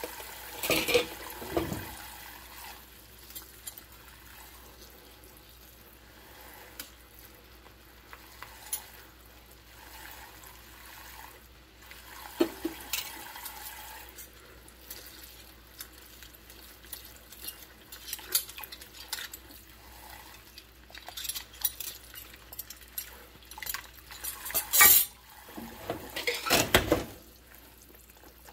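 Hand-washing dishes in a stainless-steel sink of soapy water: water sloshing and splashing, with scattered clinks and knocks of a metal utensil and a glass against each other and the sink. The clatter comes in clusters, loudest a few seconds before the end.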